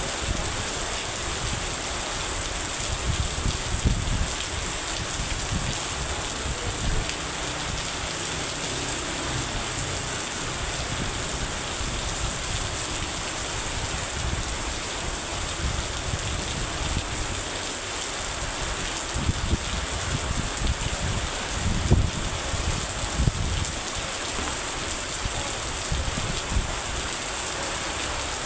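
Heavy rain falling steadily, with a few short low bumps here and there.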